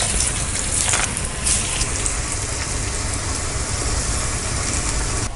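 Moong dal and potato bonda balls deep-frying in hot oil, sizzling and bubbling steadily, with a few louder flares of sizzle in the first two seconds.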